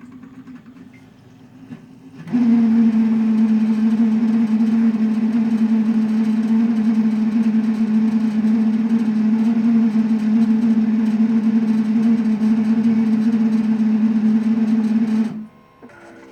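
Keurig coffee maker making an unusual loud, steady hum that starts abruptly about two seconds in after a faint tone and cuts off sharply near the end.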